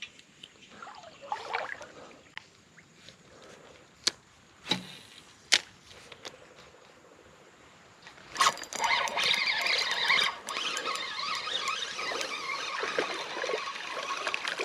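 A few sharp clicks, then about eight seconds in a squealing whir that runs for about six seconds, fitting an ultralight spinning reel being cranked as a small redeye bass is reeled in.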